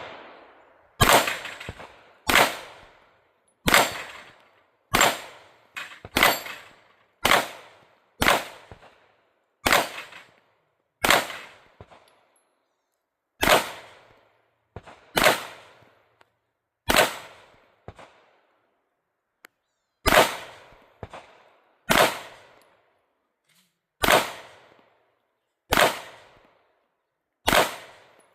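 Canik TTI Combat 9mm pistol fired in a long, unhurried string of single shots, about one every one to two seconds with a couple of longer pauses. Each shot is a sharp crack with a short echo.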